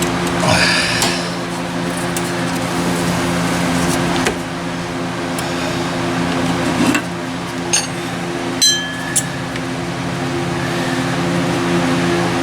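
Hand tools clinking against engine metal while a nut is worked loose: a few sharp knocks, one ringing like a dropped wrench or socket a little after halfway. A steady hum runs underneath.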